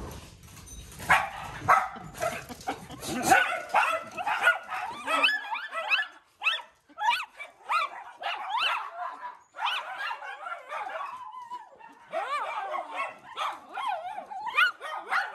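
Several miniature schnauzers yipping, whining and barking in excited greeting, a string of short high cries that rise and fall in pitch. A few knocks in the first three seconds.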